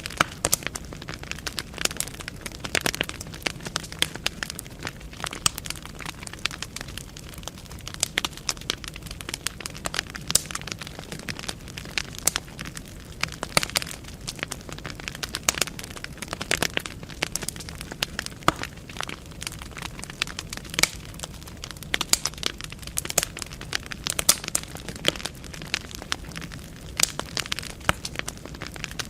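Wood fire burning in a fireplace: a steady crackle of snapping and popping logs over a low rush of flame.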